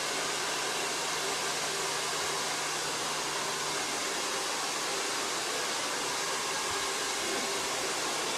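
Handheld hair dryer running steadily, a constant rush of blown air with a faint low motor hum.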